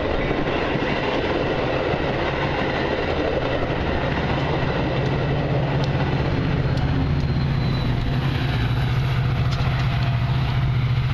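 Metra commuter train passing close by: stainless-steel bilevel coaches rolling past with a dense rail rumble. About four seconds in, the diesel locomotive pushing at the rear comes by, and its engine's steady low drone takes over as the train pulls away.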